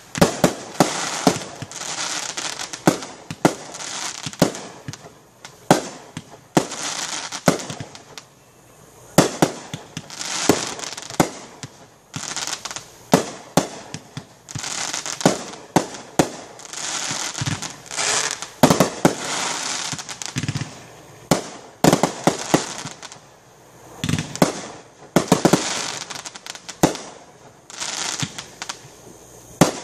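Fireworks display: aerial shells bursting in quick, irregular succession, many sharp bangs a few every second, with a rushing hiss high up between them.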